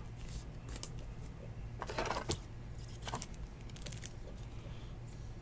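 Trading cards and their clear plastic holders being handled: scattered light clicks and plastic rustles, with a louder cluster about two seconds in, over a faint steady low hum.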